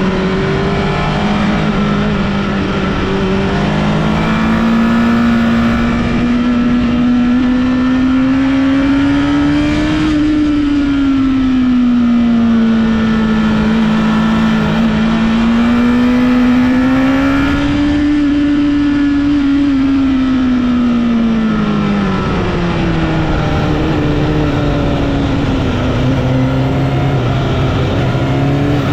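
Honda CBR1000RR Fireblade (SC77) inline-four engine under way, pulling steadily for several seconds with its pitch climbing, then easing off and falling, over and over, with a few abrupt drops in pitch.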